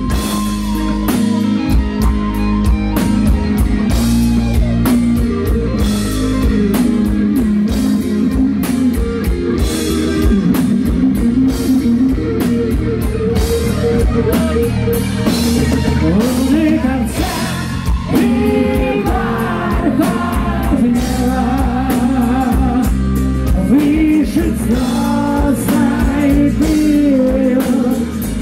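Heavy metal band playing live: distorted electric guitars, bass guitar and a drum kit, with a male lead singer's voice.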